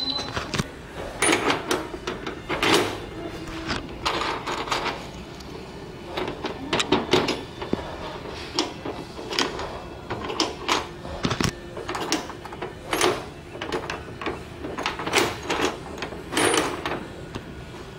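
Irregular metallic clicks, scrapes and jingles of keys on a ring being handled. A key is inserted and turned in the override key lock of a Sandusky KDEW3012-09 digital lock cabinet.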